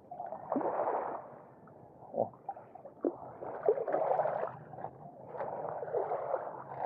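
Small waves lapping and washing over a pebble shore, swelling and fading several times, with a few short clicks of stones.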